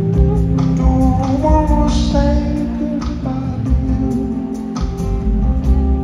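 Live band playing a slow song: strummed acoustic guitar over electric bass, with a steady beat and a melody gliding in pitch about one to two seconds in.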